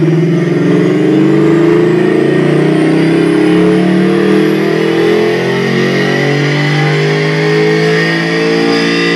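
2013 Ford Mustang GT's 5.0-litre cross-plane V8 at full throttle on a chassis dyno, its pitch climbing steadily through a long pull in one gear. It breathes through GT500 axle-back mufflers.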